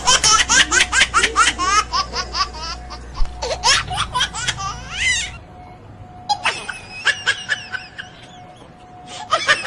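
High-pitched laughter in quick repeated pulses for about five seconds. It breaks off briefly, comes back weaker, and rises again near the end.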